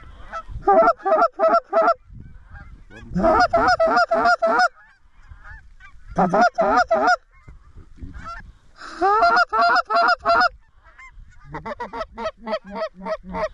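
Loud goose-like honks blown on a hunter's waterfowl call, in five runs of five or six notes at about four a second, with short pauses between runs; the calling is meant to turn passing birds back toward the decoys. The last run is softer and lower.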